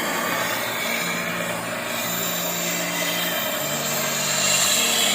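MAPP gas torch flame hissing steadily while brazing a leak in a window-type air conditioner, with a low hum underneath that shifts pitch a few times.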